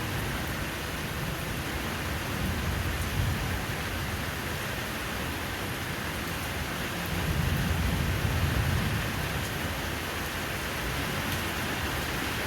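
Steady rain falling, with a low rumble of distant thunder swelling from about seven seconds in and fading after two seconds.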